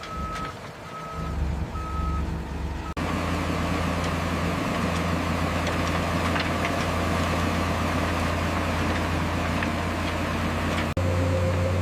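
Reversing alarm on a heavy construction vehicle beeping about once a second, then, after an abrupt cut about three seconds in, a heavy diesel engine running steadily with a low drone and a faint high whine.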